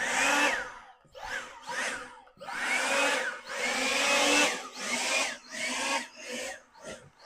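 Skil 40-volt cordless leaf blower run in about eight short bursts, the motor whine rising and falling with each burst as air rushes out.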